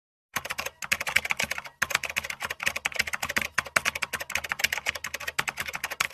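Computer keyboard typing: a fast, continuous run of keystroke clicks with two brief pauses near the start.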